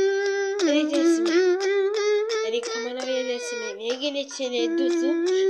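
A child singing in a high voice, holding long notes that waver slightly in pitch.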